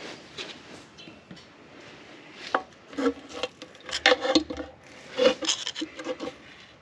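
Irregular scraping and knocking of hand tools on metal, sparse at first and busier from about two and a half seconds in, as a part on a Ford Model B engine is worked at that is stuck fast.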